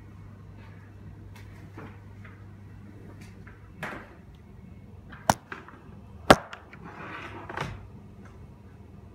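Handling noise from a handheld camera being moved: rustling, with two sharp clicks about a second apart as the loudest sounds, over a steady low hum.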